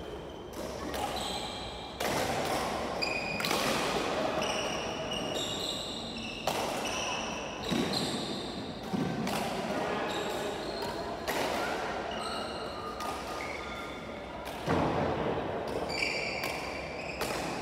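Badminton rally: sharp racket strikes on the shuttlecock every second or two, mixed with short high squeaks of shoes on the wooden court floor, echoing in a large hall.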